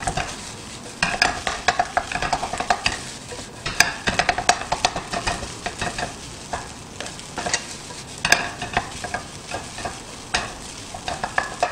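Shrimp fried rice stir-frying in oil in a frying pan: a steady sizzle under many quick, irregular scrapes and knocks of a spatula against the pan as the rice is tossed, to coat each grain in oil.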